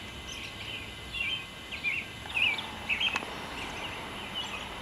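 Birds singing: a steady run of short chirped notes, about two a second.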